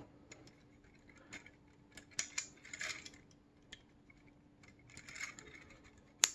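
Faint, scattered clicks and light rattles of 3D-printed plastic parts being handled as a plastic gear is fitted onto the model's crankshaft, with a sharper click near the end, over a faint steady hum.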